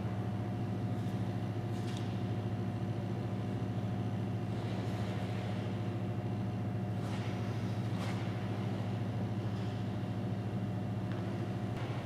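Steady low mechanical hum of an ice rink's machinery, with faint scrapes of figure skate blades on the ice every second or two.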